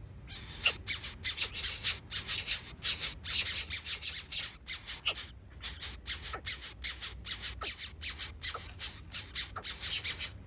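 Birds giving a rapid series of harsh, rasping calls, about four a second, keeping on without a break.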